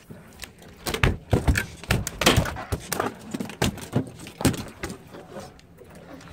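A run of irregular knocks and thuds on a boat deck while a freshly caught fish is handled, about eight to ten in the first five seconds, fading out near the end.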